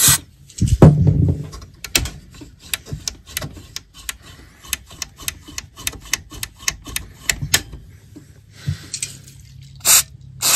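Short hisses of QD electronic contact cleaner sprayed from an aerosol can into the radio's controls, one at the start and another near the end. Between them come a loud knock about a second in and a run of sharp clicks as the push-button switches are worked.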